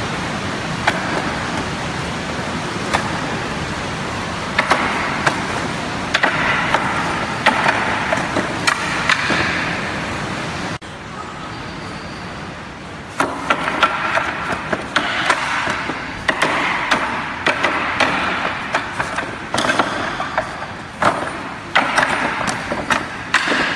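Forearms and hands striking the wooden arms and trunk of a Wing Chun wooden dummy: sharp wooden knocks, a few spaced apart at first, then quick runs of strikes in the second half. A steady background noise runs underneath and drops suddenly about eleven seconds in.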